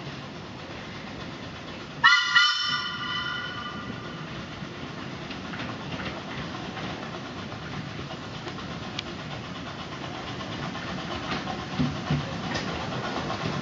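Steam whistle of the miniature steam locomotive Excalibur, one short blast about two seconds in, then the locomotive and its coaches running steadily along the track, with light clicks of the wheels over the rail joints as it draws closer.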